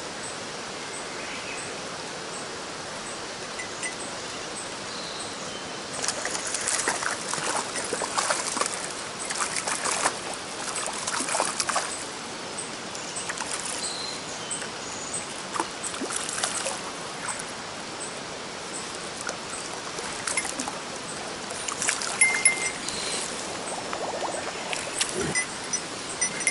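Mountain stream water running steadily. About six seconds in, bouts of louder, irregular crackling clicks come over it and die away near the two-thirds mark, then return briefly near the end.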